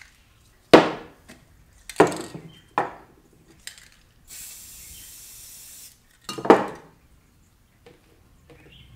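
Several sharp knocks of hard objects set down on a plywood workbench, with a cluster of them about six and a half seconds in. Between them, about four seconds in, a steady hiss of about a second and a half from an aerosol spray paint can spraying.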